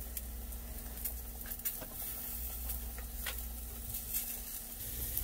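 Light taps and rustles of tortillas being handled on a hot griddle pan, a few faint clicks scattered through, over a faint steady hum.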